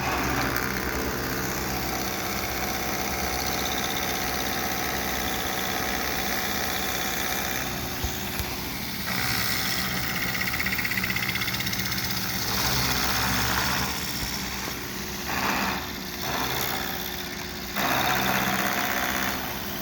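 Milling machine running with its cutter taking a pass across a high-density plastic block while the table is cranked by hand: a steady motor hum under a cutting hiss that swells and fades several times.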